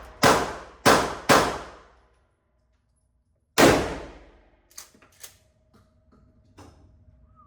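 Gunshots at an indoor shooting range, each with a short ringing tail: three shots in quick succession about half a second apart, then a fourth about three and a half seconds in, followed by a few faint clicks.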